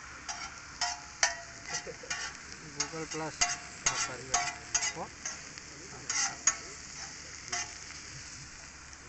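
A spatula scraping and clanking in quick, irregular strokes across a large griddle pan as a chopped vegetable mixture fries on it, over a steady sizzle. The strokes stop about a second and a half before the end.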